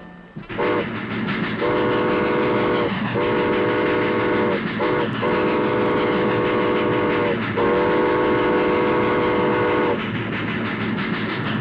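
Steam train running with a steady rumble while its chime whistle blows a chord of several notes in a series of blasts: a short one, two long, another short, then two long. The whistle stops near the end while the train keeps running.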